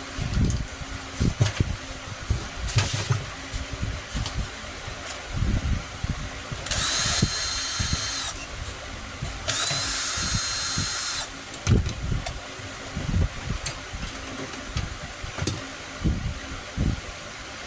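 A small handheld power tool's motor runs in two bursts of about a second and a half each, a high whine, amid knocks and clatter of parts and tools being handled.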